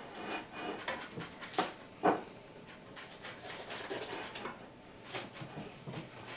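Quiet food-preparation handling sounds: a spoon stirring and scraping in a plastic tub, with scattered small clicks and two sharper knocks about a second and a half and two seconds in.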